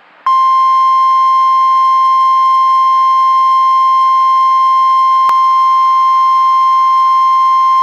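NOAA Weather Radio 1050 Hz warning alarm tone: one loud, steady, unbroken beep that starts about a quarter second in. It is the tone that signals an alert message is about to follow. A brief click cuts across it about five seconds in.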